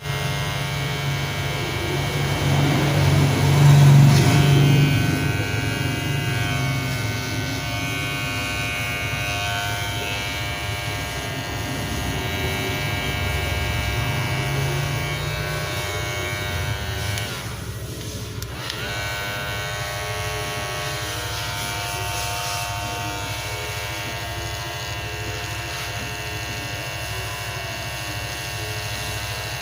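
Magic Clip electric hair clipper running with a steady, loud buzz, loudest about four seconds in and briefly dipping a little past halfway.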